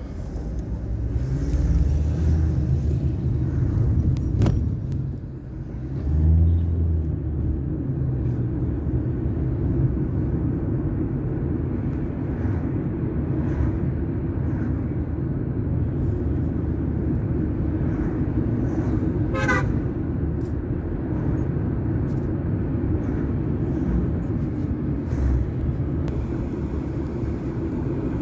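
Road noise inside a moving car's cabin: engine and tyres running steadily in town traffic, swelling as the car picks up speed about two seconds in and again around six seconds. A short car horn toot sounds about two-thirds of the way through.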